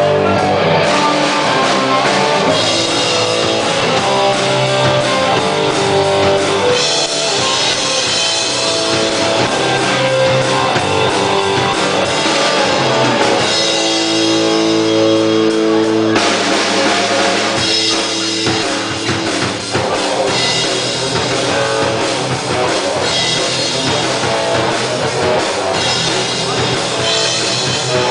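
Live rock band playing an instrumental passage with drum kit and electric guitars. The band holds a sustained chord for a couple of seconds about halfway through, then the full band comes back in.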